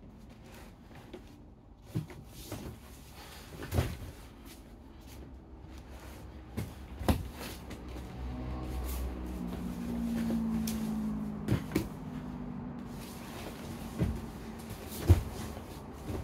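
Knocks and scuffling of two people grappling on foam floor mats, several sharp thumps scattered through, the loudest near the end. A low droning tone rises in the middle for about four seconds and then fades.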